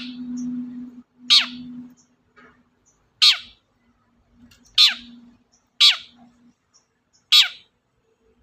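Long-tailed shrike (cendet) giving a series of about six harsh calls. Each call sweeps sharply downward in pitch, roughly one every second or so.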